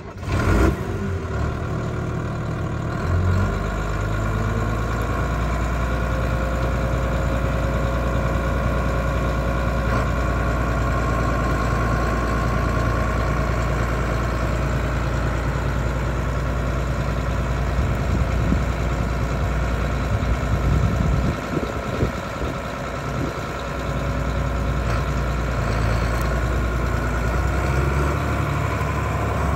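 Large Ford farm tractor's diesel engine running steadily at a low, even speed.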